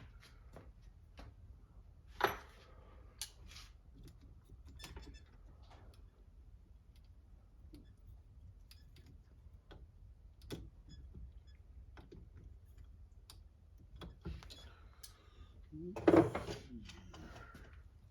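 Light clicks and taps of small metal parts and hand tools being handled while an RC car's drivetrain is taken apart, with a louder click about two seconds in and a louder squeaky scrape near the end.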